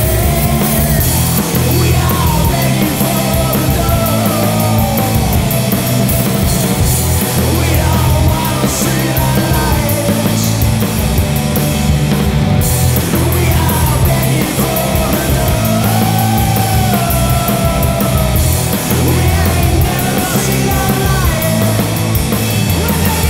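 Loud rock song playing without a break: a heavy low end of bass and drums with steady drum hits, and a sliding lead line above it.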